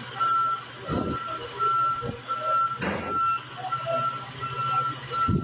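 An armoured truck's reversing alarm beeping evenly, a bit more than once a second, over the steady low hum of its diesel engine, with a few dull thumps.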